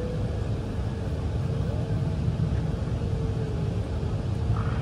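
Steady low rumble inside a Boeing 777-300ER's cabin as pushback begins, with a faint steady hum above it.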